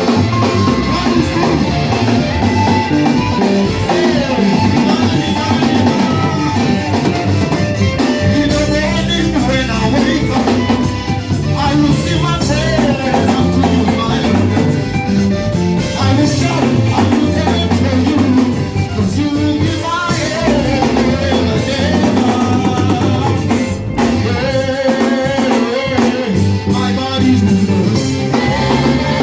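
Church worship band music with drum kit and guitar over a stepping bass line, with singing.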